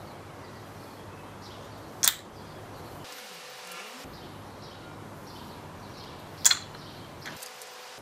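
Two sharp wooden clacks about four seconds apart: the ball of a maple Sweets Homegrown kendama landing on the wooden ken during tricks.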